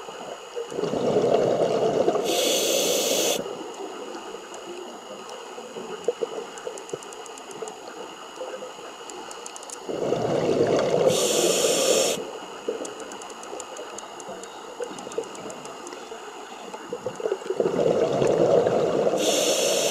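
A scuba diver breathing through a regulator underwater, three breaths roughly eight seconds apart. Each breath is a rushing gurgle of exhaled bubbles with a sharp hiss of the regulator near its end.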